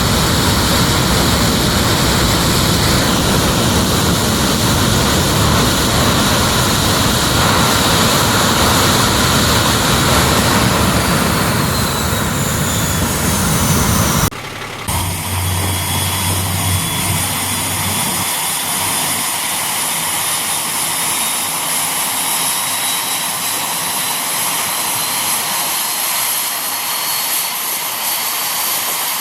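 An engine runs loudly and steadily. About halfway through, an abrupt cut changes it to a quieter run with a high whine that slowly rises in pitch.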